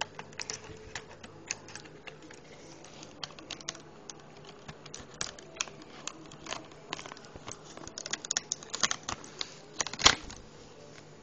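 Irregular small clicks and taps of fingers working a glow-gauge overlay onto an instrument cluster face and pushing it under the needles. The clicks come thicker toward the end, with one louder click about ten seconds in.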